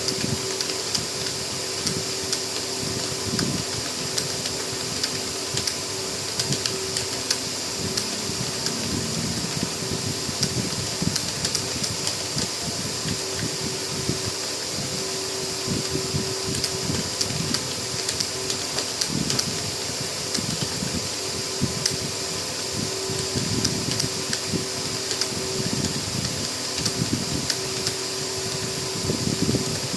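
Continuous fast typing on a computer keyboard, keys clicking several times a second, over the steady hum of a fan.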